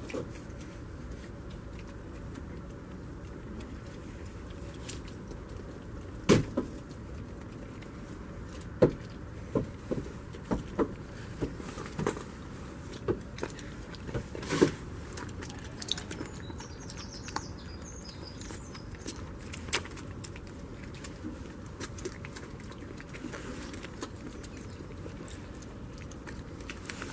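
A goat kid biting and chewing a tomato held in a hand, heard as irregular sharp clicks and crunches. They start about six seconds in, are loudest around the middle and thin out after about twenty seconds, over a steady background hiss.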